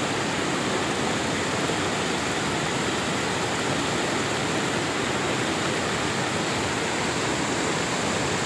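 Fast-flowing mountain water rushing steadily, an even, unbroken wash of noise.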